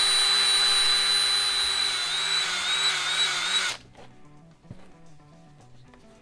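Cordless drill spinning a small flap wheel at high speed, sanding the powder coat out of a control arm's ball-joint bore. A steady high whine with a rasping grind wavers slightly and then stops about four seconds in.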